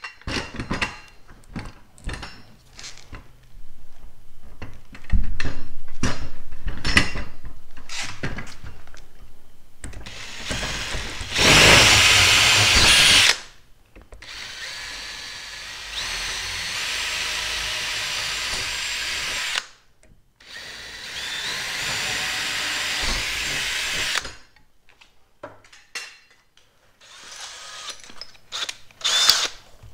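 Cordless DeWalt drill/driver driving screws, running in three long stretches of several seconds each, its motor pitch stepping up and down with the trigger. Clicks and knocks of handling come before the first run and after the last.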